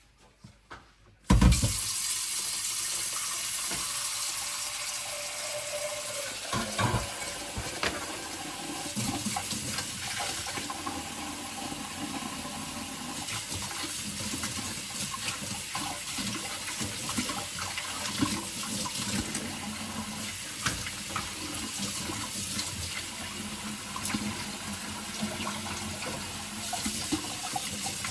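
Kitchen tap turned on about a second in, then running steadily into the sink over a stainless steel saucepan, with scattered knocks and scrapes of the pan being handled under the stream.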